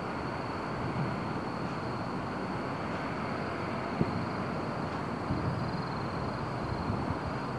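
Distant aerial firework shells bursting as short dull thumps, the sharpest about four seconds in, over a steady outdoor background rumble.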